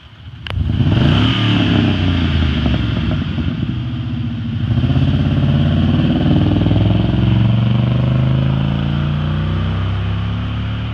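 A motor vehicle engine revving and accelerating. Its pitch climbs, drops about halfway through, then climbs again and levels off.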